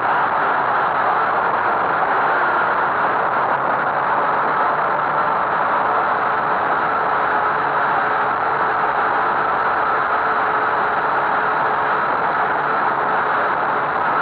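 Syma X8C quadcopter's motors and propellers buzzing steadily in flight, heard close up from a camera mounted on the drone itself, with a faint steady whine over the hum.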